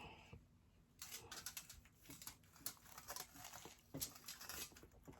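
Faint eating noises: a rapid scatter of small clicks, smacks and rustles as food is chewed and handled, starting about a second in.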